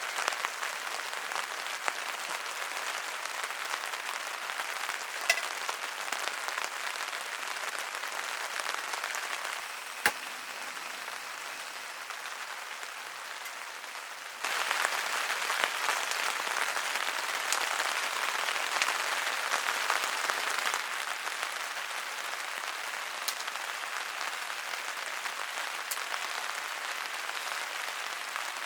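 Steady rain pattering, a dense crackle of fine drops. It grows louder for about six seconds from around the middle, then eases back. A single sharp knock comes about ten seconds in.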